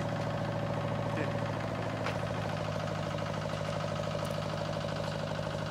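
Steady low mechanical hum, like a motor or engine running at a constant speed.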